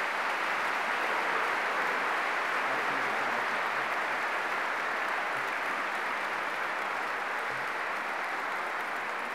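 Audience applauding at the end of a speech: a steady, dense clapping that swells in at the start and eases off slightly toward the end.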